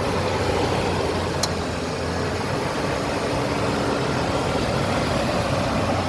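1998 Ford Ranger's engine idling steadily with the air conditioning on max, heard under the open hood. A brief click about one and a half seconds in.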